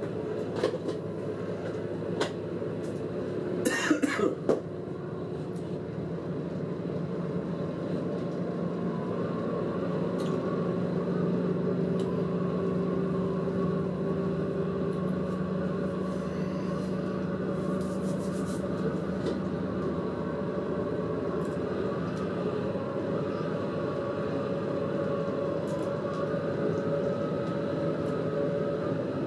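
Diesel train heard from inside the driver's cab, running along the track with a steady engine and running-gear drone that builds a little over the first ten seconds, then holds. A few sharp clicks and knocks come in the first five seconds.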